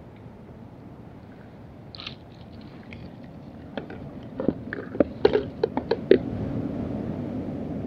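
A quick run of sharp clicks and knocks, about a dozen of them between four and six seconds in, from a freshly caught coho salmon being handled at the water's surface. A low rumble of wind and water runs underneath.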